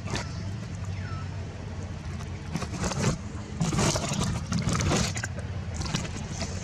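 A steady low motor hum, with louder noisy passages about three and four seconds in and a few scattered clicks.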